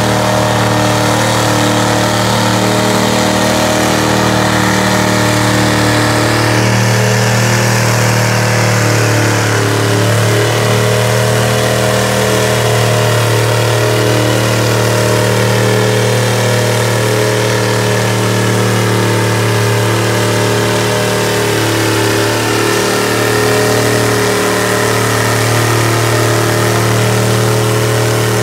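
Lifted mud-bog truck on tractor tires, its engine running loud and held at a steady pitch as the truck churns through a deep mud pit.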